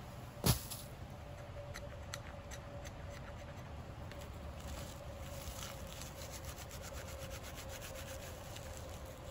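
Pine fatwood and dry birch bark tinder being handled and worked for a fire: a sharp wooden knock about half a second in, then light scraping and a run of small crackles and ticks that grows denser in the second half.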